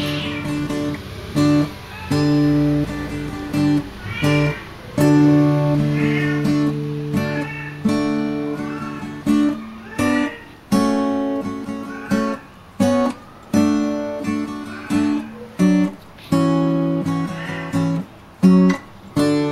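Background music: acoustic guitar playing plucked notes and chords, each note starting sharply and dying away.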